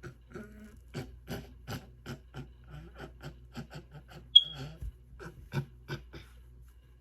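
A series of short soft rustling taps, about three a second, with one sharp high-pitched click about four seconds in.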